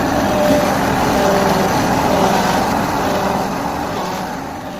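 Diesel engine running steadily, fading out near the end.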